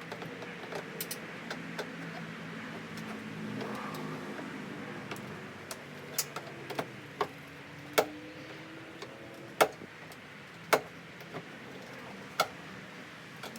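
Plastic fender-flare retaining tabs on a Jeep Wrangler JK being pried loose, giving a series of sharp, separate snaps and clicks in the second half, about six of them loud, over a faint steady hum.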